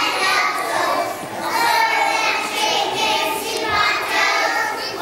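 A group of young children singing together in unison.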